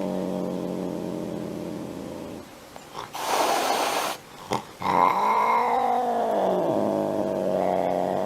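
A cat growling in a drawn-out low yowl, breaking off for a sharp hiss about three seconds in, then yowling again with a falling pitch: the warning of an agitated cat on the verge of lashing out.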